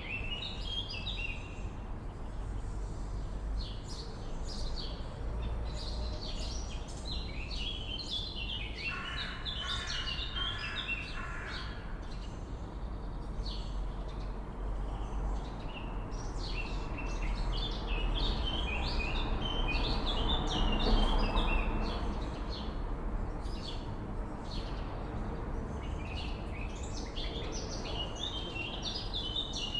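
Swallows twittering: dense, rapid high chirps that carry on almost without pause. A lower run of quick repeated notes comes about a third of the way in, over a steady low outdoor rumble that swells about two-thirds of the way through.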